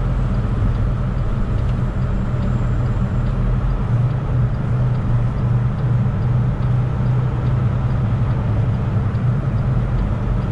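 Semi truck's diesel engine running steadily at cruise, with tyre and road noise, heard inside the cab on a snowy interstate.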